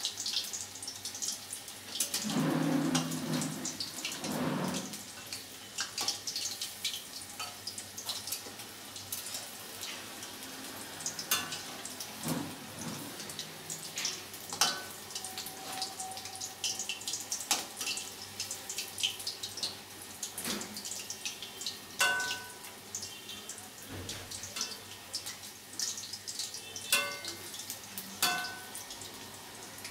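Battered chicken pieces deep-frying in oil in a steel wok: a steady sizzle with dense irregular crackles and pops. A few sharper clicks with a short ring, from the metal spoon tapping the wok as the pieces are turned.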